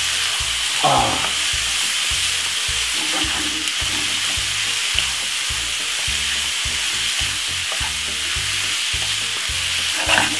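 Diced chicken breast, onions and peppers sizzling in a hot non-stick frying pan while being stirred and tossed with a wooden spatula; the frying hiss is steady throughout.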